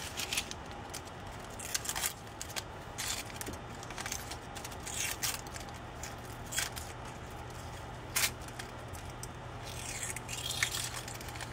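Protective paper backing being peeled off clear plastic case pieces by hand: scattered short, scratchy rips and rustles at irregular moments as the paper comes away and the pieces are handled.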